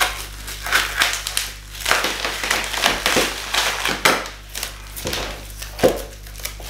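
Plastic wrap around a stack of skateboard decks being cut with scissors and pulled open by hand, crinkling and crackling in irregular rustles.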